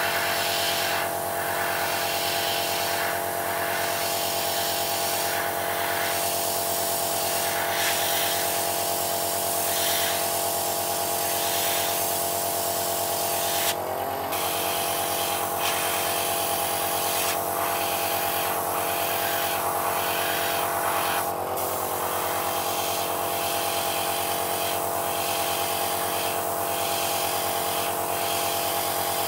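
Small airbrush compressor running with a steady hum, while the airbrush hisses in short sprays every second or so as paint is laid on.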